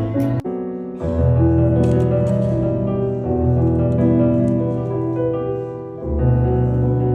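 Piano music: held chords over low bass notes, with a short break about half a second in.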